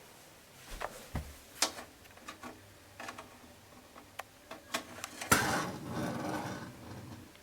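Scattered light knocks and clicks of handling, then a longer rustling scrape about five seconds in.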